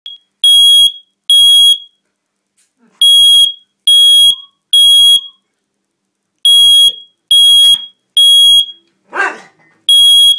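Smoke alarm sounding a loud, high, piercing beep in groups of three with a pause between groups, the temporal-three fire-alarm pattern. A dog gives one short bark about nine seconds in.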